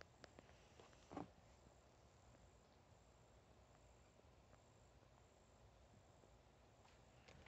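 Near silence: faint outdoor ambience with a very faint, high-pitched chirp repeating evenly about one and a half times a second, and one soft bump about a second in.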